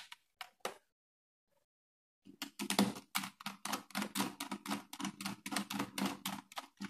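Screwdriver turning a terminal screw on an ELCB to clamp a wire. A few clicks come first, then a pause of over a second, then a fast run of clicks, about five a second, from a little over two seconds in.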